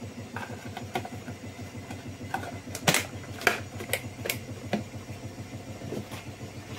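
Clear plastic tub tapped and knocked against a plastic mixing bowl to shake out cocoa powder: a few sharp clicks clustered about halfway through, over a steady low hum.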